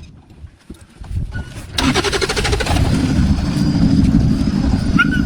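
A vehicle engine starts up about two seconds in and keeps running steadily.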